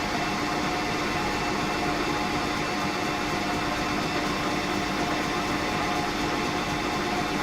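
Smart & Brown lathe running steadily at its raised speed while the end of a stainless steel rod is cleaned up: an even machine hum with a few held tones and no change in level.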